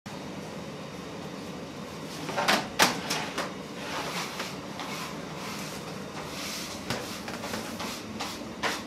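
Metal baking tray of bagels being slid out of a deck oven: two loud metal clanks about two and a half seconds in, then lighter scrapes and knocks, and another clank near the end, over a steady background noise.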